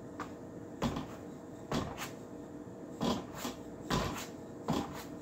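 A Wing Chun training ring knocking and clacking against the wooden trunk of a wooden dummy, about eight irregular knocks, over a faint steady hum.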